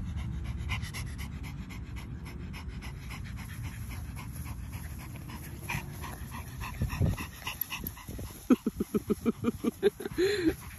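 French Bulldog panting in quick, regular breaths, becoming loud over the last two seconds at about five breaths a second, with a steady low rumble underneath.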